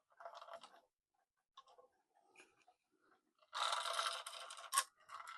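Cuckoo clock chain links rattling and scraping as the chain is fed through a hole in the wooden case: a short scrape near the start, a few light clicks, then a longer, louder rattle that ends in a sharp click.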